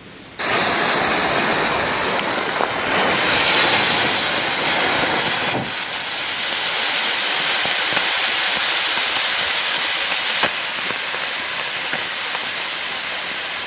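A bunch of coloured smoke ball fireworks burning together, giving off a loud, steady hiss that starts suddenly about half a second in.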